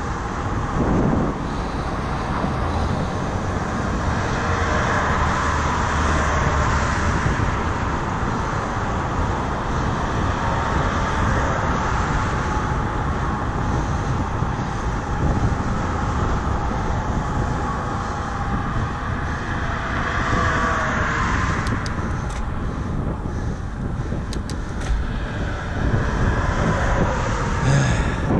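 Road traffic going by: a steady rush of tyres and engines that swells twice as vehicles pass.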